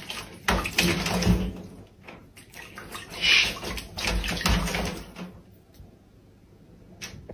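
Owl bathing in a shallow bowl of water, splashing in bursts as it dips and flaps its wings. The splashing dies down after about five seconds.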